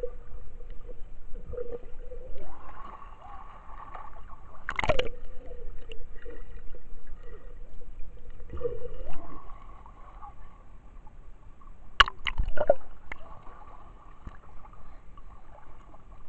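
Muffled underwater sound in a swimming pool: gurgling bubbles and a hum that comes and goes. There are louder splashes about five seconds in and twice around twelve seconds in.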